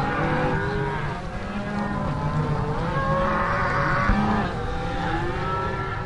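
A large herd of beef cows and calves bawling, many overlapping moos at once.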